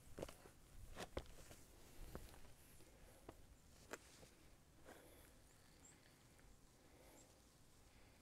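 Faint, irregular footsteps of a hiker on a dirt trail, thinning out after about five seconds.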